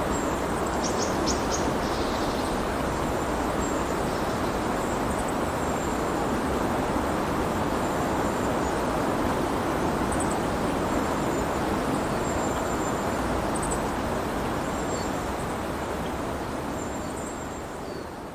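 Steady rain falling, an even hiss, with a bird chirping briefly about a second in. The rain fades out over the last few seconds.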